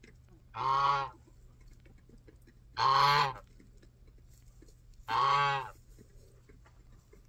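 Domestic white goose honking three times, each honk about half a second long, evenly spaced about two seconds apart.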